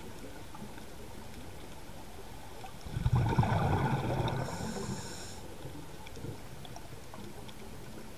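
A scuba diver's regulator underwater: one burst of exhaled bubbles about three seconds in, rumbling for around two seconds before fading, over a steady underwater hiss.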